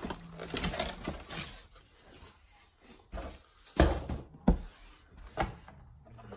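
Cardboard box and its cardboard insert being handled and opened, rustling, with a few sharp knocks in the middle.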